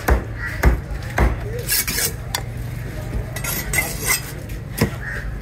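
Knife chopping fish on a cutting block: three chops about half a second apart, then the blade scraping and clinking, and one more chop near the end.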